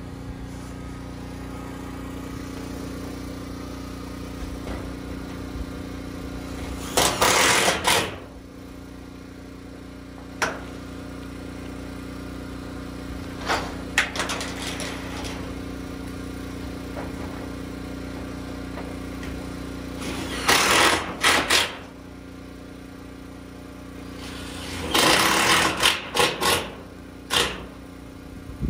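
DeWalt cordless drill driving screws through corrugated metal roofing tin in short bursts, about five times, some as quick double or triple pulses. A steady engine hum runs underneath.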